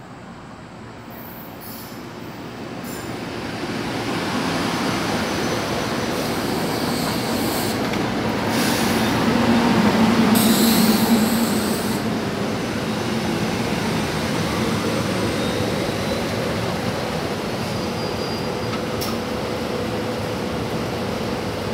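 Three-car SEPTA Silverliner IV electric commuter train pulling into the station and rolling past close by. Its wheels rumble on the rails, growing louder over the first few seconds and loudest about ten seconds in, then holding steady as the cars go by.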